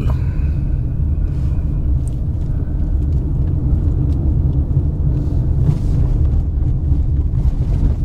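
A car driving along a narrow, bumpy road: a steady low rumble of engine and tyres, with a few faint knocks from the rough surface.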